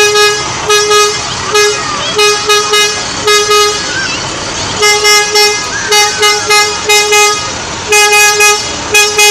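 A truck's horn honked over and over in short toots of one steady pitch, about twenty in all, in quick groups of two or three with brief pauses between.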